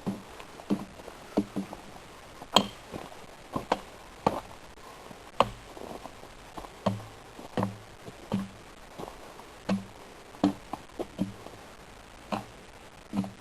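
A series of sharp knocks and clicks at uneven spacing, roughly one a second, some with a dull low thud under them.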